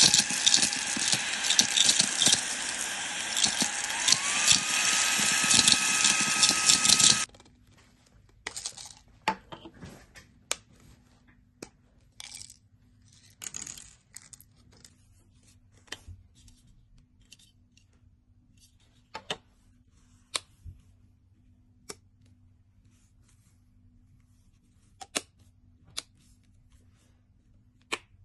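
Vacuum cleaner running, loud, with a motor whine that rises in pitch about four seconds in. It cuts off suddenly after about seven seconds, followed by scattered clicks and knocks over a faint hum.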